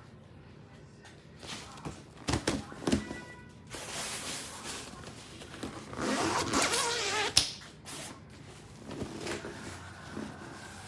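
A lightweight double stroller being handled: a few sharp clicks and clatters of the frame, then a few seconds of whirring rattle that ends in one sharp click about two-thirds of the way in.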